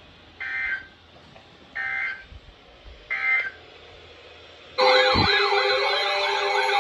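Three short data bursts of NOAA Weather Radio SAME end-of-message tones, each a shrill warble about half a second long, signalling the end of the broadcast. About three seconds later a loud electronic siren-like wail of wavering tones over steady tones begins.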